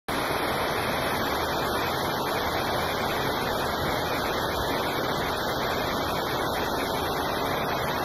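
Waterfall rushing: a steady, even hiss of falling and running water with no breaks.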